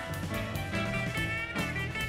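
Background music led by a plucked guitar, its notes changing about every half second.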